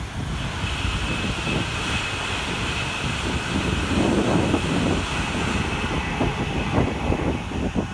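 Taiwan High Speed Rail 700T electric trainset passing at high speed on a viaduct: a steady rushing with a high whine, loudest about four seconds in, then fading as the train heads for the tunnel. Wind buffets the microphone throughout.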